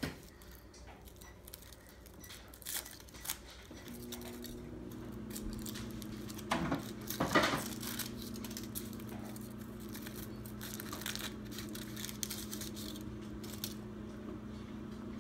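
Foil wrapper crackling and tearing in short rustles as a small child's fingers peel it off a chocolate surprise egg, with two louder crinkles around seven seconds in. A steady low hum comes in about four seconds in.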